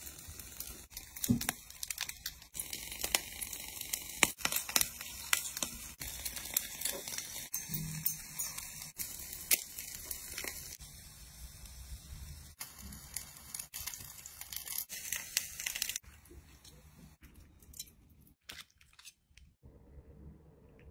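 Food being torn apart and eaten close to the microphone: a dense run of tearing, crinkling and crunching with many sharp clicks, which dies down about 16 seconds in to a few faint clicks.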